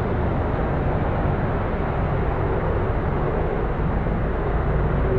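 Police helicopter circling overhead, a steady low drone of rotor and engine over the background hum of the city.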